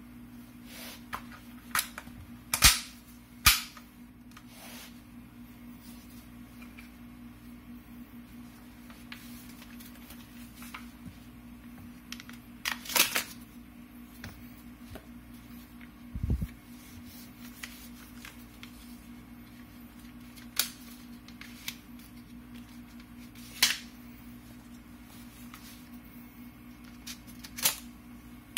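Sharp clicks and snaps of an IWI X95 rifle being taken apart by hand: takedown pins pushed through the receiver and polymer handguard rail covers unclipped. The clicks are scattered, several close together in the first few seconds, with one dull thump about midway, over a steady low hum.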